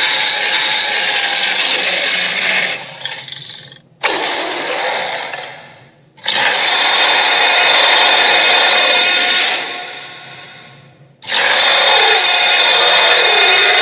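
A string of mechanical, power-tool-like sound effects, four separate bursts of a few seconds each that start suddenly and fade away.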